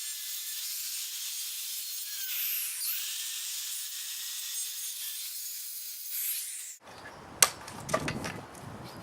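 Circular saw ripping a wooden 2x2 lengthwise: a steady hissing cut noise with a few brief changes in pitch. About seven seconds in, the sound cuts off abruptly, followed by two sharp knocks.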